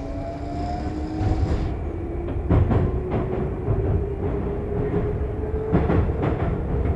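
Metro train running, its motors whining with a tone that slowly rises in pitch as the train gathers speed, over a steady rumble. The wheels clack over rail joints a few times, in the middle and near the end.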